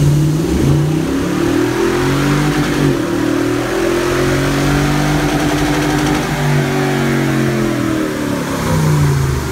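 Toyota Tundra pickup's V8 engine revving under load on a chassis dyno, its pitch climbing slowly through the middle of the run and falling again toward the end.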